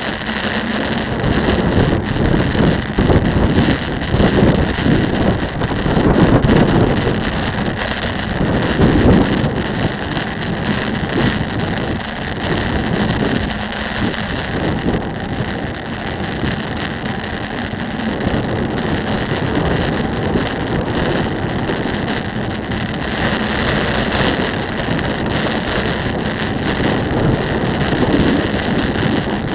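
Wind and road noise on a bicycle-mounted camera's microphone while riding along a street, with heavier low wind buffeting in the first ten seconds or so.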